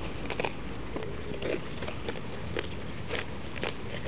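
Goats grazing close up: irregular crisp rips as they tear mouthfuls of grass and clover, with the crunch of chewing in between.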